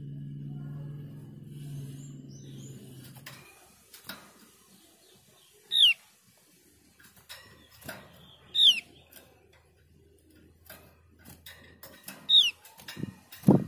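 Caged Javan grey-throated white-eye giving single sharp down-slurred call notes, three of them a few seconds apart, among light clicks from the cage. Near the end it flutters on the perch with a loud thump. A low hum fills the first few seconds.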